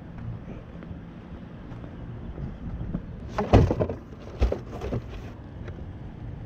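Wind noise on the microphone, then a couple of loud thumps and some clattering about three and a half and four and a half seconds in, as a large cardboard box is set down in an SUV's open cargo area.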